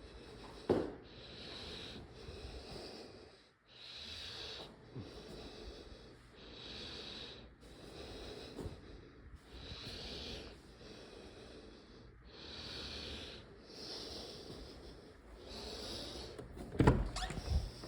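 A person breathing heavily, hissy breaths in and out about every one and a half seconds. A thump comes about a second in, and a louder cluster of knocks near the end.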